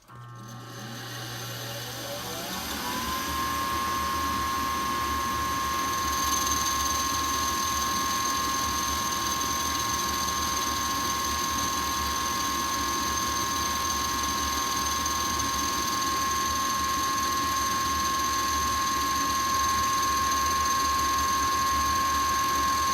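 Rheem furnace draft inducer motor starting up, its whine rising in pitch over about three seconds and then running as a steady high whine. This is the sound of an inducer motor assembly that is starting to go bad, near the end of its life.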